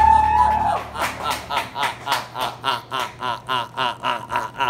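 A person's high, rapid cackling laugh, about four to five short bursts a second, preceded by a high held note that ends about a second in.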